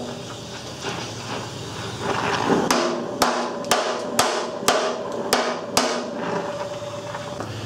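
Oxy-acetylene torch flame hissing steadily, then about three seconds in, seven hammer taps, about two a second, on a hot 1/8-inch steel patch plate, each with a short metallic ring, bending the softened plate to the curve of a steel mower deck.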